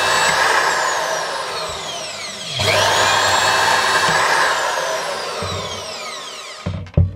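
Makita 2107F portable band saw running and cutting through a piece of paper micarta. Its whine sinks in pitch twice, jumping back up about two and a half seconds in. It stops near the end and is followed by a sharp clunk.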